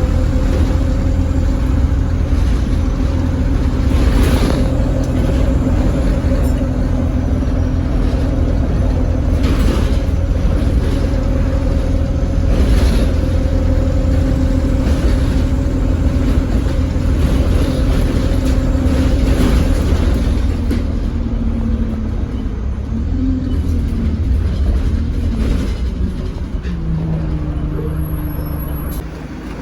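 ADL Enviro200 single-deck bus heard from inside while under way: the engine and drivetrain run with a steady hovering hum over a low rumble, with a few sharp knocks and rattles from the bodywork. The sound grows quieter over the last several seconds.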